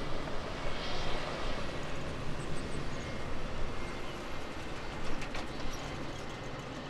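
Jet airliner engines making a steady rumble and hiss at the airport, with a few faint high chirps about two and a half seconds in.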